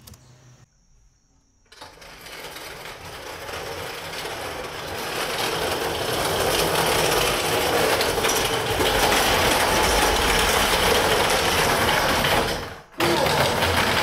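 Small casters of a wheeled dolly loaded with a car seat rolling across a rough concrete garage floor: a steady rolling rattle that grows louder as it comes closer, with a brief break near the end.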